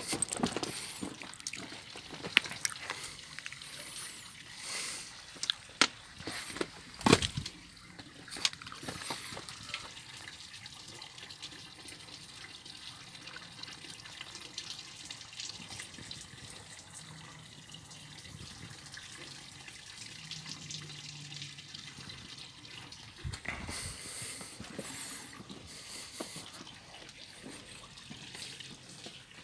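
Water dripping and trickling, with sharp clicks and knocks over the first several seconds.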